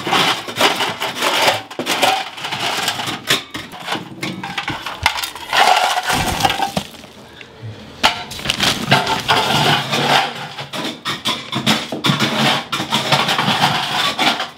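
Broken chunks of an old mortar shower-pan bed clattering and crunching as they are gathered by hand and tossed onto a pile of rubble, a dense run of knocks with a short lull about six seconds in.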